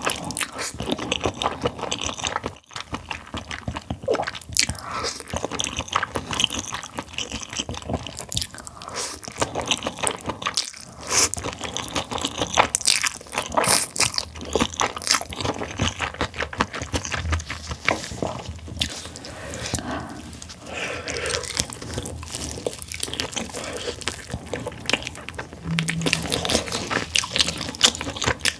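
Close-miked chewing and slurping of saucy glass noodles: a dense, continuous run of wet mouth clicks and smacks.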